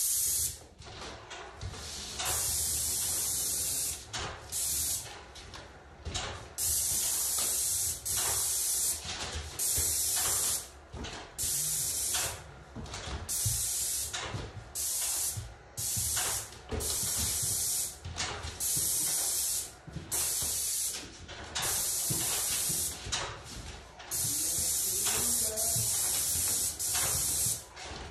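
Airless paint spray gun hissing in repeated bursts as the trigger is pulled and released. Passes of two to three seconds alternate with short dabs, laying enamel onto flat panel doors.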